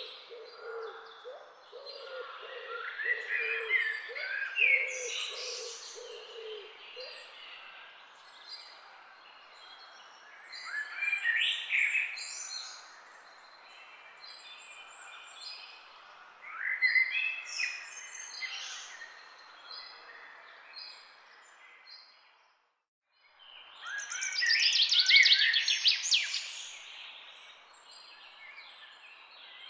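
Wild birds singing in a chorus of quick chirping and trilling phrases, coming in four louder bursts with quieter twittering between. A low note repeats over and over through the first several seconds, and the sound breaks off completely for a moment shortly before the last and loudest burst of song.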